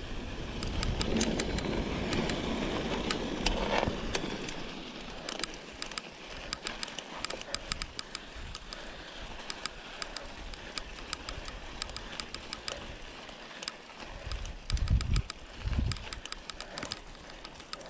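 Mountain bike rolling over a dirt and gravel trail: tyre crunch and rattle with many sharp, irregular clicks as something knocks against the handlebar camera. Wind rumbles on the microphone, stronger in the first few seconds and in two short gusts near the end.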